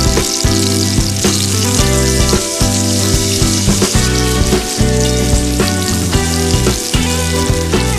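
Food sizzling as it fries in hot oil, a steady hiss, over background music with a bass line and a regular beat.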